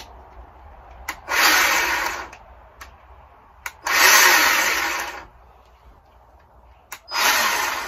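Bauer 20V cordless chainsaw's electric motor and chain run without load in three short bursts, each starting with a trigger click. Each burst is at full speed at once: the trigger is not variable speed.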